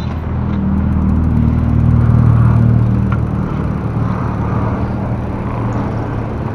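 Motorcycle engine running steadily while riding, with road and wind noise; the engine note swells about two seconds in, then eases.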